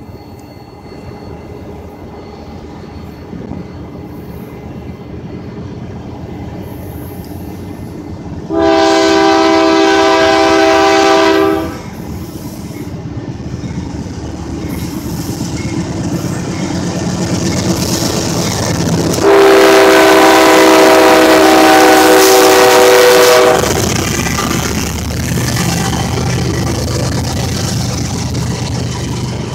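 Freight train led by a Union Pacific diesel locomotive approaching, its rumble building, with two long horn blasts: one of about three seconds starting roughly nine seconds in, and a longer, louder one starting about nineteen seconds in. The freight cars then roll past with steady wheel noise.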